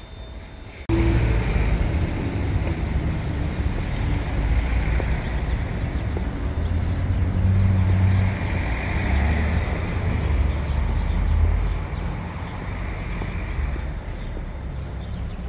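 Street traffic: cars and trucks passing with a low engine rumble and tyre noise. It starts abruptly about a second in and eases near the end.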